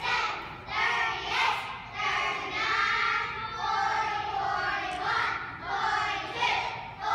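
A class of kindergarten children counting aloud together in a rhythmic sing-song chant, the numbers coming at a steady beat.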